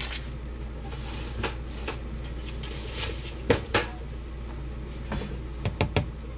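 A cardboard tube of refrigerated canned biscuits being worked open by hand: scraping and rubbing on the tube, a pair of sharp knocks around the middle and a quick run of knocks near the end, while the can still won't pop.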